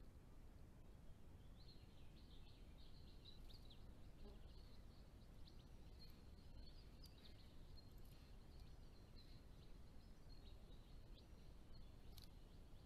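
Faint, high twittering of small finches, many short chirps in quick succession, over a low steady hiss from the camera's microphone. Near the end comes a brief wing flutter as a bird takes off.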